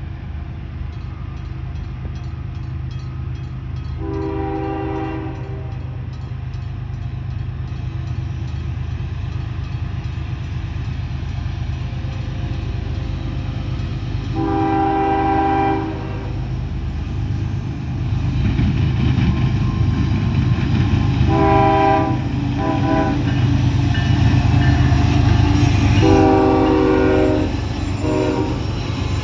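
Approaching freight train's diesel locomotive sounding its horn: two long blasts, then two short ones, a long one and a short one. Under the horn the rumble of the locomotive and the rolling cars grows steadily louder as the train comes by.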